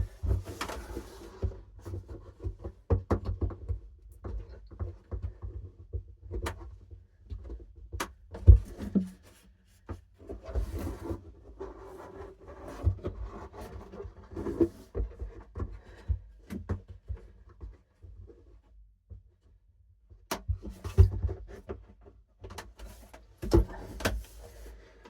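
Irregular knocks, low thumps and scraping of a heavy 15-inch subwoofer being handled and worked into place in its enclosure, with a quiet stretch of a couple of seconds about two-thirds of the way through.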